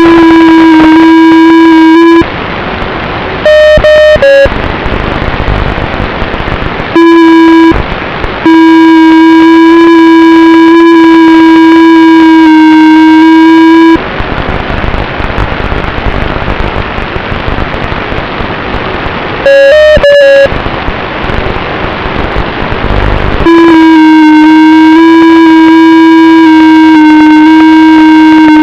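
A loud, harsh electronic buzzing tone at one steady pitch cuts in and out several times. It alternates with stretches of steady hiss, like radio static.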